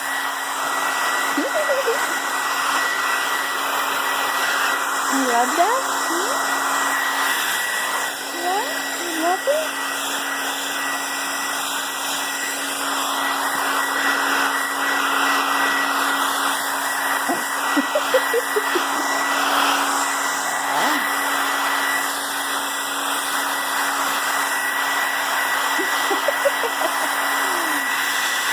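Hand-held hair dryer blowing steadily on one setting: a rush of air with a low motor hum and a thin high whine. A few short squeaky whines rise and fall over it now and then.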